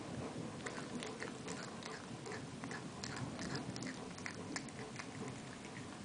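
Maine Coon cat chewing a mouse: many small, irregular clicks of biting, several a second.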